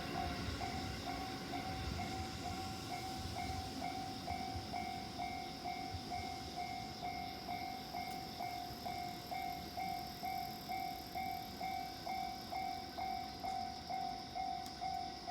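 Japanese level crossing's electronic warning bell ringing steadily, about two dings a second. A train's low rumble fades away over the first few seconds while the bell keeps ringing.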